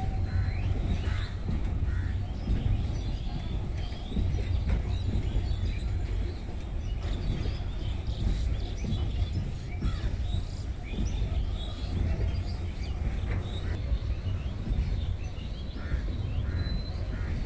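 Low, steady rumble of a long container freight train's wagons rolling over a concrete bridge, with birds calling throughout.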